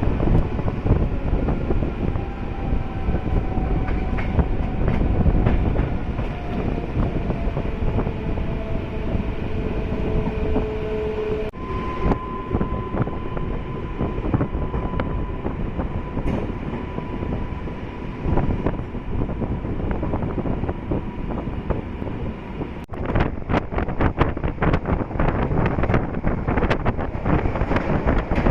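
MEMU electric passenger train running along the track: a steady rumble with a faint whine that slowly falls in pitch. In the last few seconds there is a rapid run of clacks as the wheels cross rail joints.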